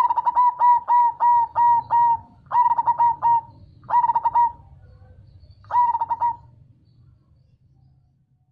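Zebra dove (perkutut) cooing. It gives a quick run of about seven short notes, then three shorter groups of notes, and falls quiet for the last two seconds.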